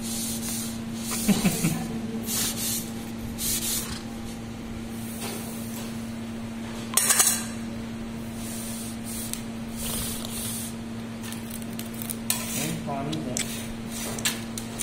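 A series of short scratchy rustles on a woven plastic floor mat as a kitten moves about on it, the loudest about seven seconds in, over a steady low hum.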